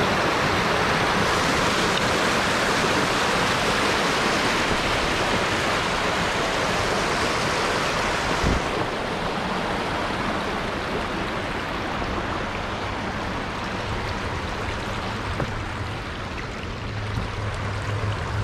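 Steady rush of flowing water, easing somewhat about halfway through, with a low hum coming in near the end.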